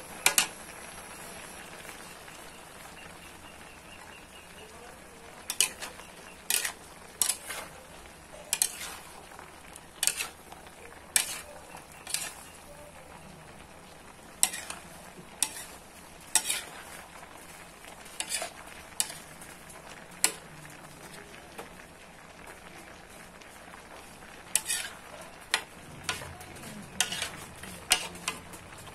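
Metal spatula and spoon scraping and knocking against a large aluminium wok as chop suey vegetables are stirred and tossed: sharp clinks in irregular runs of strokes, over a steady low frying hiss.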